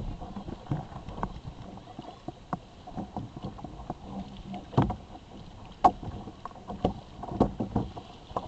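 Water slapping and splashing against a plastic sit-on-top kayak hull under way, with irregular sharp knocks, the loudest about five, six and seven and a half seconds in.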